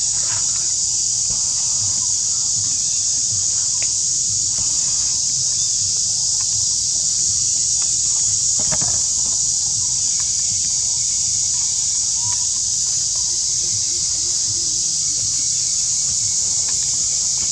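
Steady high-pitched insect chorus droning without a break, with a single soft knock about halfway through.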